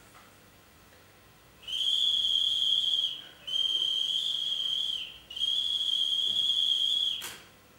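A high-pitched whistle sounding three long, steady blasts with short breaks between them.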